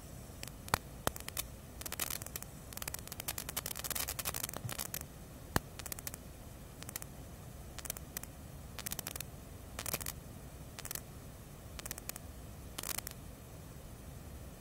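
Makeup brush scraping and swishing over skin in short irregular strokes while dark makeup is filled in around the eye, with a few sharp clicks, two near the start and one about halfway.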